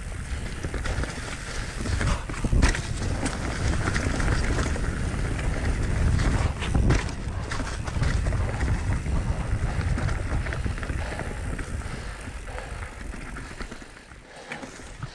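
Mountain bike rolling over a dirt singletrack covered in dry leaves: a steady rumble of tyres and trail noise, with sharp knocks from the bike over bumps about three and seven seconds in. It eases off near the end.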